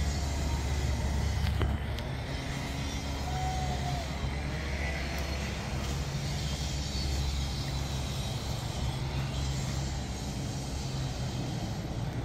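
Steady low engine rumble with a constant hum, dropping slightly in level about two seconds in. A brief faint whistle-like tone sounds about three and a half seconds in.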